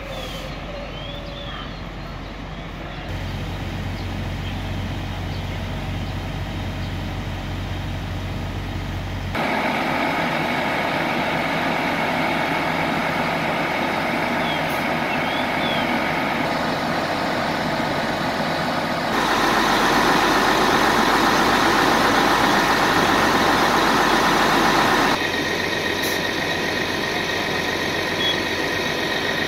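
Fire apparatus diesel engines running steadily, with a pumper engine hooked to a hydrant and supplying hose lines. The level jumps up or down abruptly a few times.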